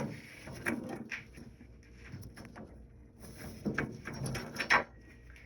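Scattered light clicks, knocks and rattles of a dehumidifier's cabinet parts being handled and pushed into place, a cluster of louder knocks about four seconds in.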